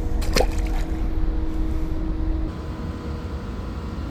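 Steady low rushing rumble of water being pumped out by a power plant, with a steady hum that cuts off about two and a half seconds in. A brief click comes just after the start.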